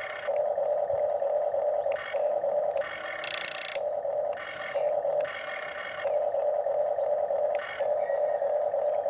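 Electric motors of a HUINA radio-controlled toy excavator whining as the boom and bucket are worked. A steady mid-pitched whine is interrupted several times by a higher, buzzier motor sound as different functions switch on and off.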